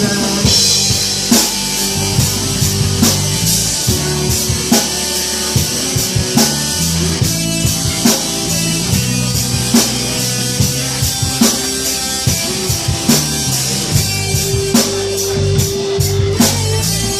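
Live country-rock band playing an instrumental outro: a drum kit with a steady beat under electric guitar and bass.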